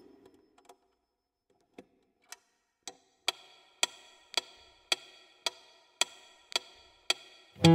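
Metronome ticking steadily at about two clicks a second, faint at first and clearly louder from about three seconds in, counting in the tempo; an acoustic guitar comes in right at the end.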